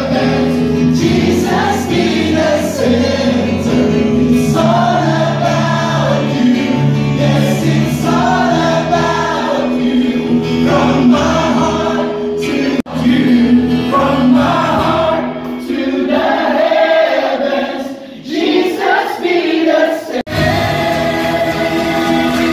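Live worship band: several singers singing together into microphones over acoustic guitar and keyboard-style accompaniment. The low accompaniment drops away for a few seconds near the end, and the music breaks off abruptly just before a new passage starts.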